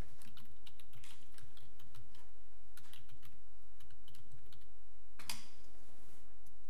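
Scattered light clicks of typing on a computer keyboard, over a steady low hum.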